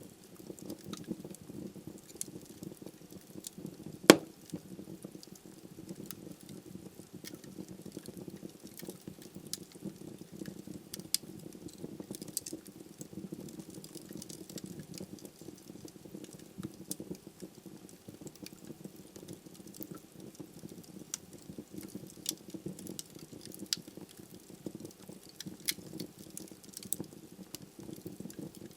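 Wood fire in a fireplace burning with a steady low rush of flame and scattered crackles and pops from the logs, one loud snap about four seconds in.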